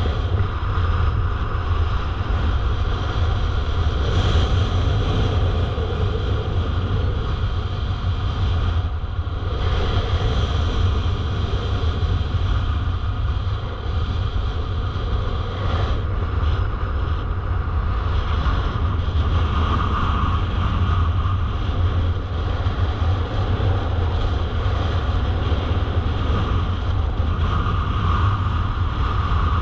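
Airflow of a paraglider in flight buffeting the camera's microphone: a steady, deep wind rumble with a rushing hiss above it.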